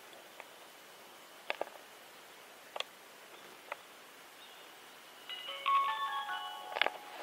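Trail camera being set up: a few sharp clicks as its control buttons are pressed, then about five seconds in a short electronic jingle of beeps at several pitches.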